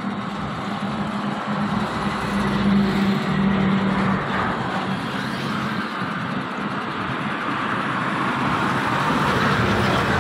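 Steady vehicle noise with a low hum, without breaks.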